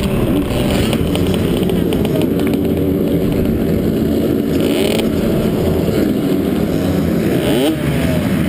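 A 65cc two-stroke motocross bike's engine running close to the microphone at low speed, holding a steady note through the middle, with a couple of quick revs near the end.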